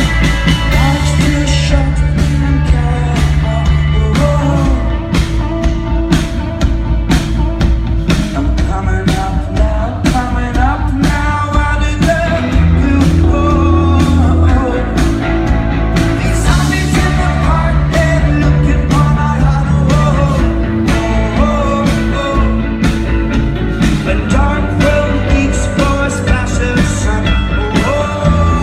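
A live rock band playing a song, with a lead singer over drums, bass and guitars.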